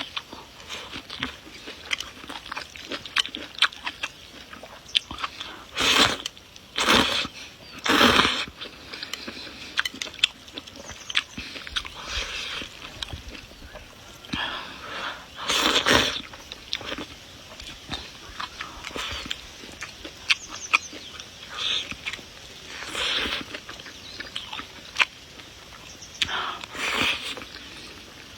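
Close-miked eating of noodles, fried egg and flowering cabbage greens: wet chewing with many small mouth clicks, broken by several louder, noisy slurps of about half a second each.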